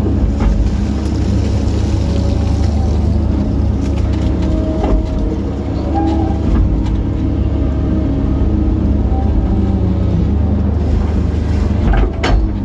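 Kobelco SK135SR excavator's diesel engine and hydraulics running steadily under load, heard from inside the cab, as it scoops pond silt, swings and dumps it. There are a few sharp knocks near the end.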